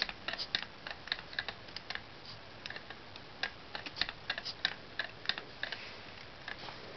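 LEGO two-cylinder pneumatic engine running, its plastic pistons, valves and gears making a rapid, irregular clicking of several clicks a second. The clicks thin out near the end.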